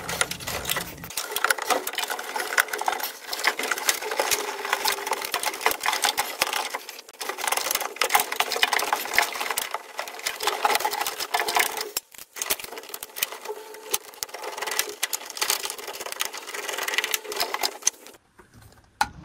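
Hands handling parts inside a gas furnace's burner compartment: dense rustling and rapid small clicks, with brief pauses twice and dying away near the end.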